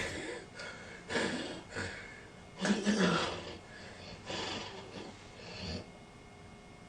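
A person snoring, with breaths coming in separate bursts roughly a second or so apart; the biggest comes about three seconds in.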